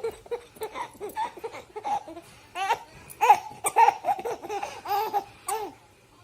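A baby laughing in a long run of short, high-pitched giggles, loudest about three seconds in.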